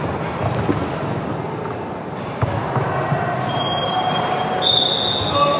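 Basketball bouncing on a hard gym court amid the hall's steady background noise, with short high squeaks from about three seconds in.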